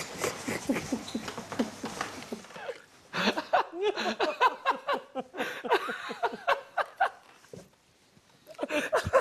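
A man and a woman laughing in fits of giggles, which die down about a second from the end and then start up again.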